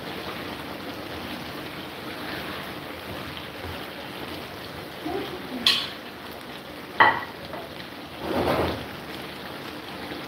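A spatula stirring chicken and vegetable sauce in a nonstick frying pan over a steady sizzle of the cooking sauce, with two sharp knocks of the spatula on the pan about six and seven seconds in and a louder scrape soon after.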